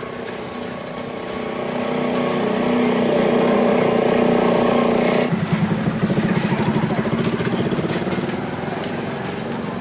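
A motor vehicle's engine running, growing louder over the first few seconds, then turning to a fast, chugging beat about five seconds in.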